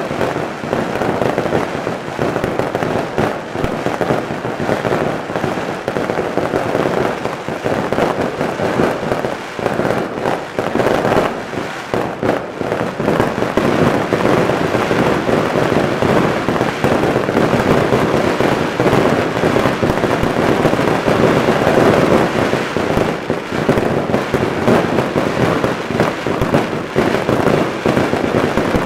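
Daytime fireworks barrage: a dense, unbroken run of rapid bangs and crackling from aerial bursts, getting somewhat louder about halfway through.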